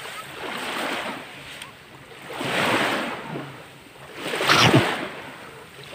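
Small sea waves washing onto the beach, a noise that swells and fades three times about two seconds apart, the loudest a little past halfway.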